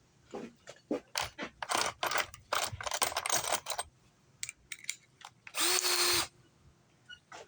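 A series of short clattering knocks and rattles, then a brief steady whir of a power drill running for about half a second, about two-thirds of the way through.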